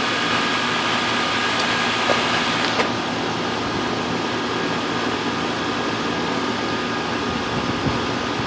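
Running air-conditioning equipment, a Bryant Evolution R-410A heat pump being brought down from an overcharge while refrigerant goes into a recovery tank: a steady mechanical whir with a faint steady whine, and a couple of light clicks about two to three seconds in.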